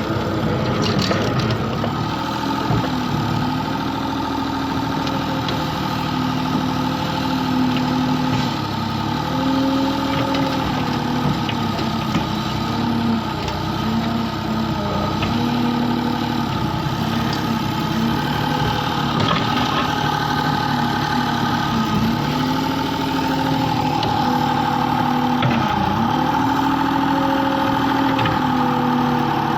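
Excavator's diesel engine running steadily, its pitch dipping briefly every few seconds as it takes load.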